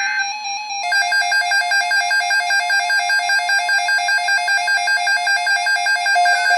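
Emergency alert tones: a buzzing digital header burst ends just after the start, then, about a second in, an electronic two-tone alert signal starts and warbles rapidly and evenly between a low and a high pitch, announcing a National Weather Service severe thunderstorm watch.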